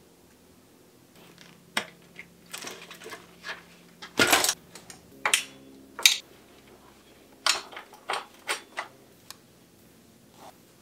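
Irregular clicks, knocks and short rattles from a 1991 Raleigh Chill mountain bike being handled in a repair stand, with a louder clatter about four seconds in.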